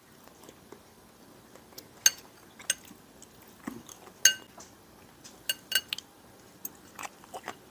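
A metal fork clinks against a dish during eating, in a scattered series of short, ringing clinks.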